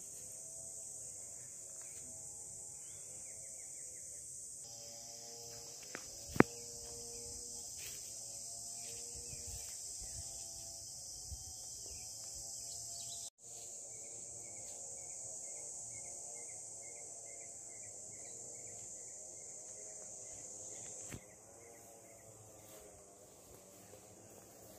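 Steady, high-pitched insect chorus buzzing without pause, with a sharp knock about six seconds in. The chorus gets quieter near the end.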